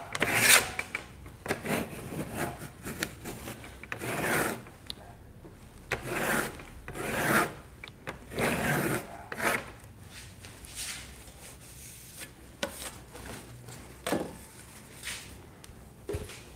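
Palette knife scraping old oil-paint residue off a wooden painting palette, in a run of short scraping strokes over the first ten seconds or so, then a few light taps.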